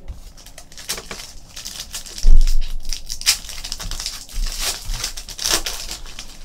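Foil wrappers of Panini Certified hockey card packs crinkling and tearing as packs are ripped open by hand, with a dull thump about two seconds in.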